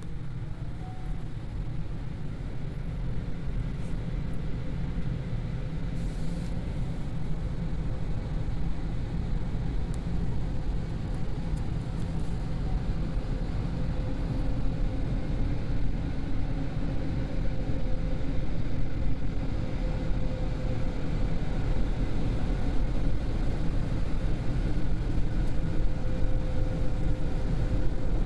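Steady low rumble heard from inside a car's cabin, growing slowly louder, with a faint steady hum over it.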